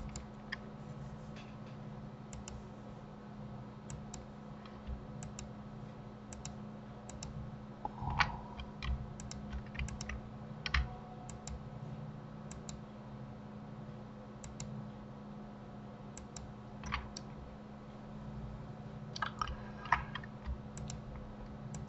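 Scattered computer keyboard keystrokes and mouse clicks, a few at a time with pauses between, over a steady low hum.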